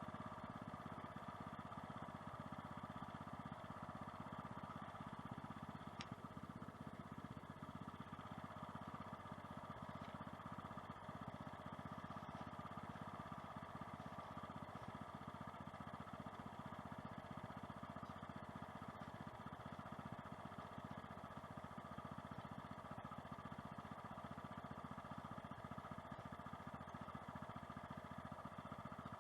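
Small engine of a farm machine running steadily at an even speed, with a faint click about six seconds in.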